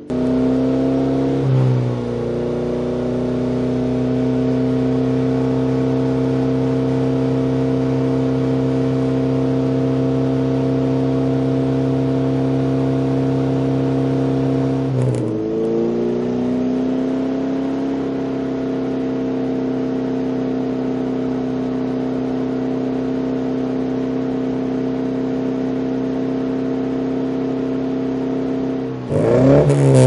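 Exhaust of a 1992 Rover Mini 1000's four-cylinder A-series engine, fitted with a long-centre-branch manifold, 45 mm pipe, no catalyst and a large-bore single-box muffler, held steady at about 4000 rpm. About halfway through it cuts to a second take at the same speed, the pair comparing the exhaust note with and without an EST inner silencer in the tailpipe. Near the end the throttle is blipped in quick revs.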